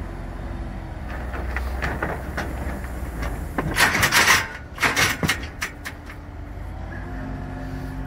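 Volvo compact wheel loader's diesel engine running as it dumps a bucket of sand into a wooden-sided utility trailer; the sand pours in with a loud rush about four seconds in, followed by a few sharp knocks.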